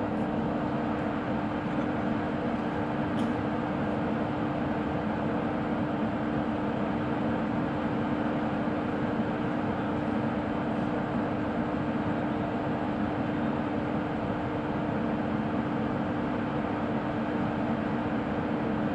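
WAP1 electric locomotive standing energised and idling: a steady mechanical hum with one strong constant tone.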